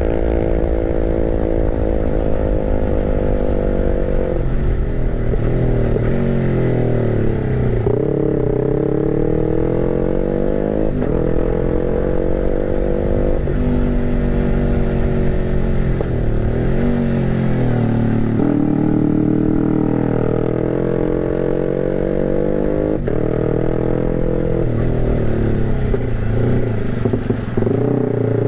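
Bore-up motorcycle engine running on a 'timing kuda' (horse-gallop) ignition setting from a BRT Juken 5 ECU, ridden slowly. Its pitch rises and falls several times as the rider opens and closes the throttle.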